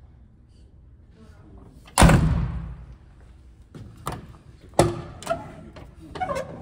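A heavy fire truck cab door slams shut about two seconds in, with an echoing ring that fades over about a second. Several lighter clanks and latch clicks follow.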